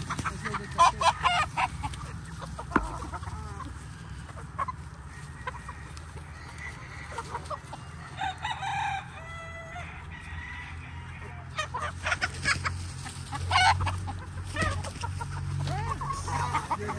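A flock of chickens, mostly roosters, clucking while they feed, with clusters of short sharp clucks near the start and again in the last five seconds. A rooster crows once about halfway through. A steady low hum runs underneath.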